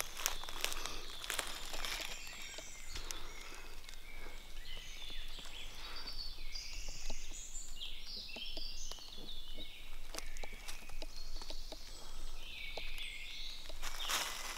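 A few footsteps on dry leaf litter, then woodland birds singing short high-pitched phrases over a faint outdoor background.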